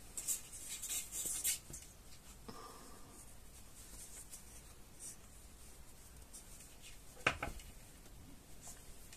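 Fabric rustling and rubbing as hands fit a lining inside a sewn mitten, busiest in the first second and a half, with a single sharp knock about seven seconds in.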